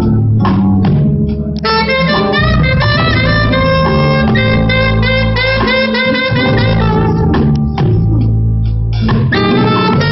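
Live band playing jazz: a saxophone carries a sustained melody over bass and a drum kit. The drums play bursts of sharp hits near the start and again near the end.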